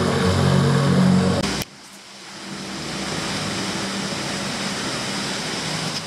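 A low hum with a steady pitch cuts off abruptly about a second and a half in. Then comes the steady rush of water pouring down a stepped cascade fountain.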